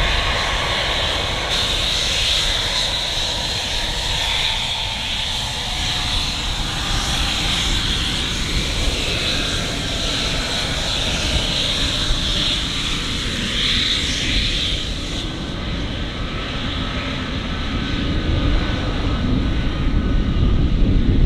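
2022 Gulfstream G600 business jet taxiing, its twin Pratt & Whitney PW815GA turbofans giving a steady high whine at taxi power. Near the end the engine noise grows louder and deeper as the jet moves into its take-off.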